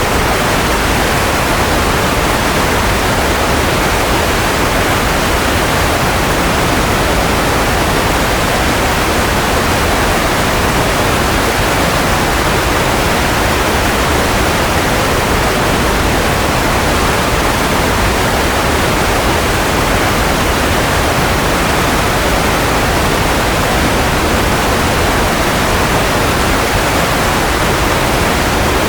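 Steady white noise for baby sleep: an even, unchanging hiss with no tones or breaks, fullest in the middle range.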